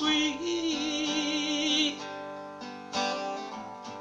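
A man sings the word "sweet" as a long, wavering held note over a strummed acoustic guitar in a gospel song. The voice stops about two seconds in and the guitar rings on alone, with a new strum about a second later.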